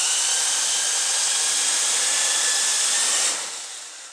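Toy RC Chinook-style tandem-rotor helicopter's electric motors and spinning rotor blades running at full speed, a steady high whine over the rush of the blades. About three seconds in it fades away as the rotors wind down.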